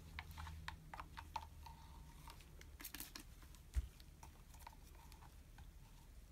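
Faint scattered clicks and light handling noises, with one sharper thump nearly four seconds in.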